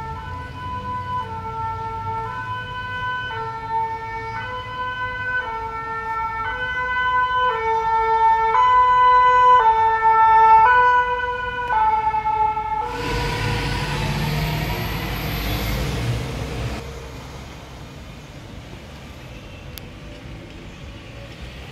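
French two-tone fire-brigade siren on a red fire-rescue van, switching between a high and a low note about once a second and growing louder as the van approaches. About 13 seconds in the siren stops, a loud rushing noise follows for about four seconds, and then only faint street traffic remains.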